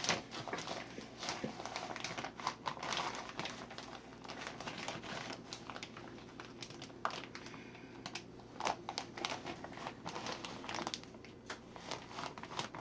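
Brown sugar bag crinkling and rustling as a measuring cup is pushed in to scoop the sugar, with many small irregular crackles and clicks.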